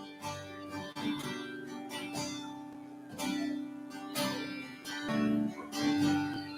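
Acoustic guitar strumming chords in an instrumental passage between verses of a hymn, with roughly one strum a second.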